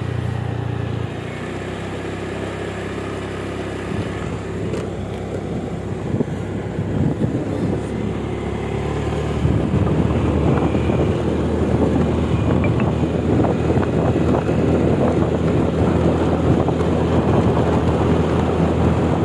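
An engine running steadily, its pitch shifting about a second in, with rougher noise growing louder from about ten seconds in.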